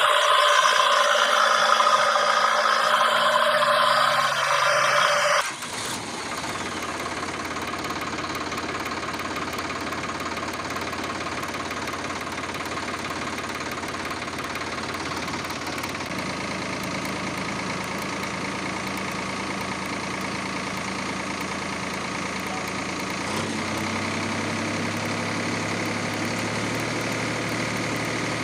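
A toy loader's small geared motor whirs and clatters for about five seconds, then cuts off suddenly. A steady engine sound follows, like a tractor engine idling, and shifts slightly in pitch about 23 seconds in.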